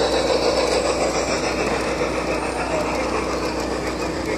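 Large-scale garden railway model train running past on its track: the cars' wheels rolling with a steady mechanical hum, and voices chattering in the background.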